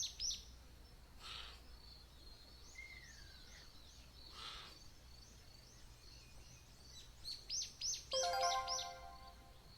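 Small birds chirping outdoors: quick runs of short falling notes at the start and again near the end, and a single falling whistle about three seconds in. Near the end there is also a brief call or tone of several steady pitches, under a faint background hiss.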